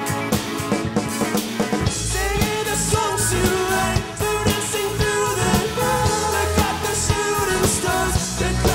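Rock band playing live: electric guitars, bass guitar and drum kit, with a man singing lead from about two seconds in.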